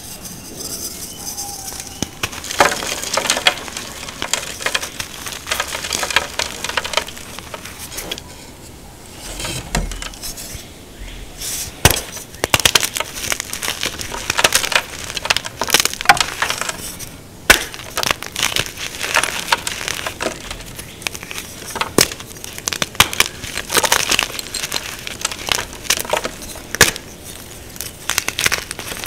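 Blocks of dry, crunchy chalk crushed and broken apart by hand: a crumbling crunch throughout, with sharp snapping cracks every second or two as pieces break off.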